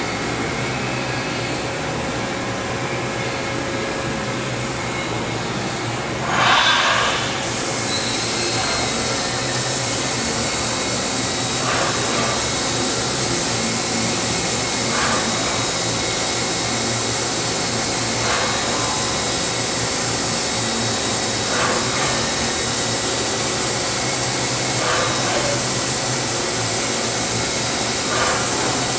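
Milltronics VM24 CNC vertical machining center running a bolt-hole pattern program over a steady machine hum. A loud short whoosh comes about six seconds in, a steady high whine then sets in, and six brief moves follow about every three seconds as the machine steps from hole to hole.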